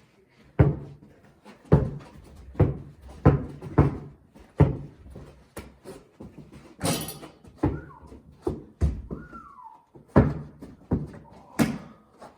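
A basketball bouncing on a hard indoor floor during play: a run of irregular thuds about once a second, with one sharper, longer clatter about seven seconds in and a brief falling squeal soon after.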